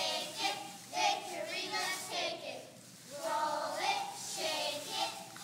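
Young girls' voices chanting a cheer together in rhythmic phrases, the phrase starting over about three seconds in.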